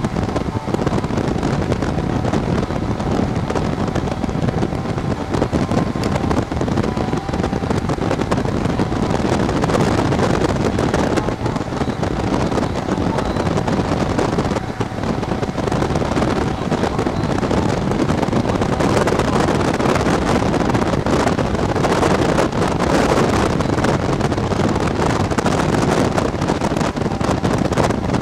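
Wind rushing and buffeting over the microphone of a camera riding on a moving motorcycle sidecar, with the road and motorcycle noise beneath it.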